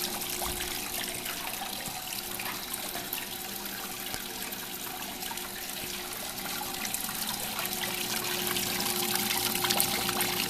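Belshaw waterfall glazer circulating water in place of glaze: a steady pouring trickle as the sheet of water falls and splashes back into the tray, with a faint steady hum under it.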